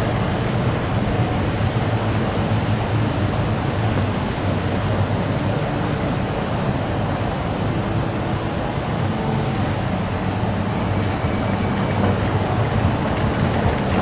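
Steady, even rushing background noise of an underground metro station concourse, with a low hum underneath.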